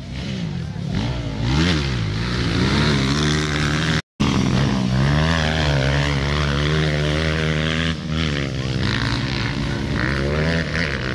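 Motocross bike engines revving hard, their pitch rising and falling over and over as the riders accelerate through the corners. The sound cuts out completely for a moment about four seconds in.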